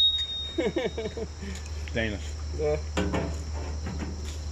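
Insects trilling steadily, with one high steady tone that stops about half a second in, under a few short spoken words and small clicks.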